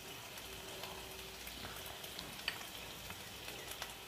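Butter and oil sizzling steadily in a hot pan, with scattered small crackles and one sharper pop about two and a half seconds in, as spoonfuls of flour go into the fat to start a roux.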